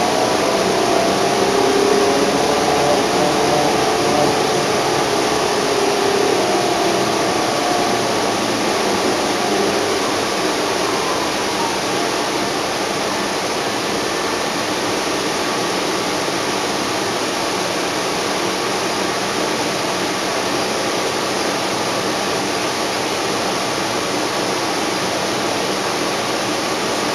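Inside a 2010 NABI 31-LFW CNG transit bus with a Cummins L Gas engine and ZF transmission: the engine and drivetrain whine, wavering in pitch. The whine fades out about ten seconds in, leaving a steady rushing cabin noise.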